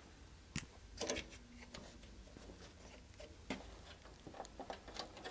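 Faint scattered clicks and taps of hands working on the metal chassis of an HP 8711C network analyzer, loudest about a second in, with a run of small ticks near the end.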